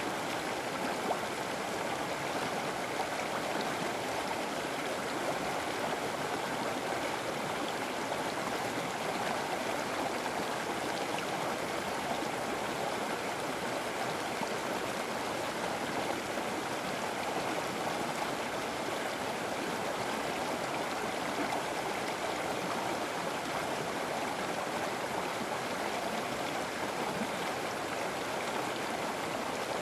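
River water flowing steadily over rocks, a continuous even rush and gurgle with no breaks.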